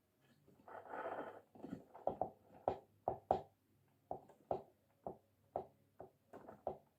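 Light plastic clicks and knocks, about a dozen at irregular spacing, from handling a toy washing machine and small plastic balls being put into it.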